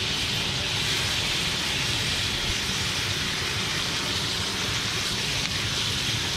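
Butter sizzling steadily in a frying pan over low heat, with green chilies, lemon slices and ginger frying in it.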